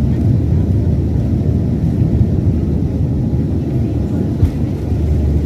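Cabin noise inside a Boeing 737-800: a steady, loud low rumble from the jet engines and the air rushing past, with one brief knock about four and a half seconds in.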